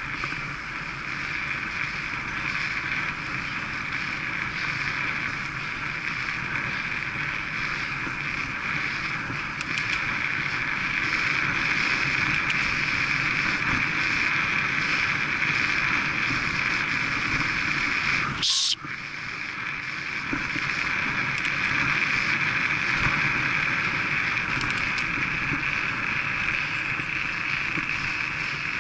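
Wind rushing over a bike-mounted camera's microphone and tyre noise on tarmac from a road bike ridden at about 20 to 26 mph. About two-thirds of the way in, a short sharp hiss comes and the sound drops out for a moment before the wind noise returns.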